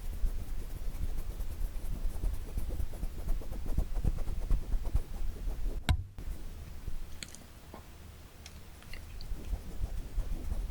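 Hands and fingers tapping rapidly, giving dense, muffled low taps, with one sharp click about six seconds in and a quieter stretch of a few light clicks before the quick tapping picks up again near the end.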